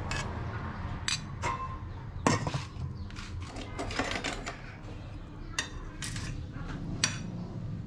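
A metal spoon clinking against a rice-cooker pot and ceramic bowls and plates: about seven sharp clinks, one ringing briefly, the loudest a little over two seconds in. A steady low hum runs underneath.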